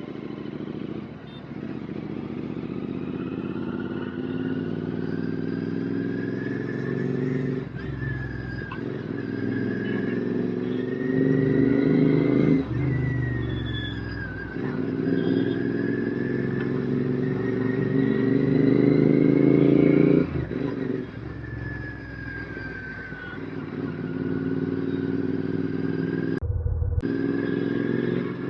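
Royal Enfield Continental GT 650's parallel-twin engine through an aftermarket RRP exhaust, pulling through the gears on the road. The pitch climbs and then drops sharply several times as the rider shifts up or rolls off the throttle.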